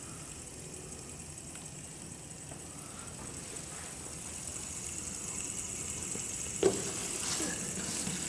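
Plastic fidget spinner spinning flat on a wooden tabletop, a faint steady whir. A single sharp knock comes past two-thirds of the way through.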